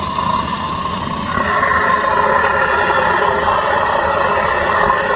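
Gas burner of a furnace running with a steady rushing noise, fed at about 5 psi through a regulator. It gets louder and brighter a little over a second in, then holds steady.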